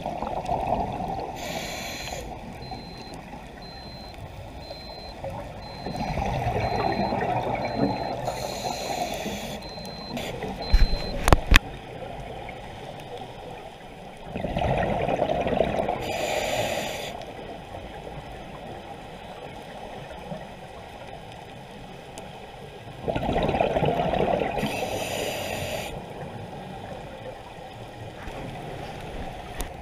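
Scuba regulator breathing heard underwater: a rush of bubbling exhaust about every eight seconds, each ending with a short hiss. A few sharp knocks come about eleven seconds in.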